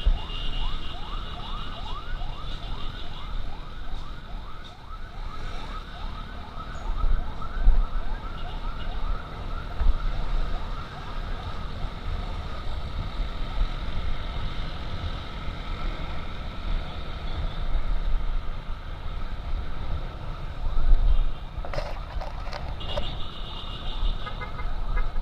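Emergency siren yelping in fast, repeated rising sweeps, strongest in the first half and fading later, over the low rumble of wind and the motorcycle.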